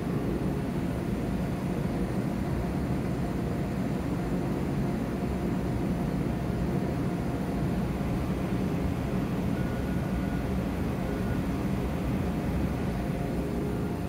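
Forced-air furnace running: a steady rush of blower and air with a thin whistle held over it, a whistle that persists with a brand-new air filter fitted.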